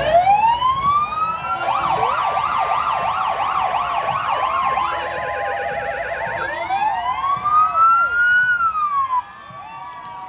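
Several emergency-vehicle sirens sounding at once. They cycle from a slow rising wail into a fast warbling yelp and back to a wail, then drop away sharply near the end.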